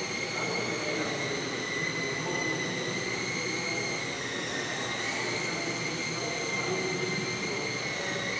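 Small electric motor and propeller of a UMX Spacewalker micro RC plane whining steadily in flight, the pitch dipping slightly about four seconds in and rising again just after as the throttle changes.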